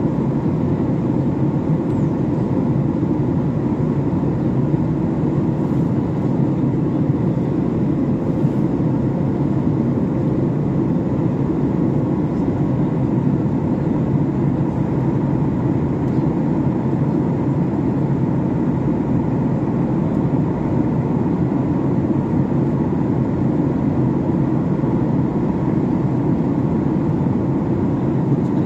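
Steady cabin noise of a Boeing 737 in flight, heard from a window seat beside the engine: an even, deep jet-engine drone mixed with rushing air that holds unchanged throughout.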